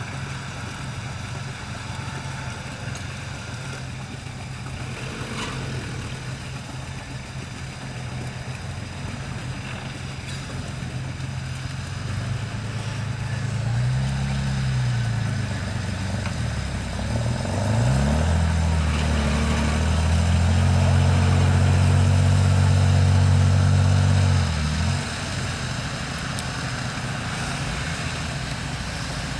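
Engine of a 4x4 bogged in a muddy pond, idling, then revved up and down twice around the middle and held at high revs for several seconds before dropping back to idle.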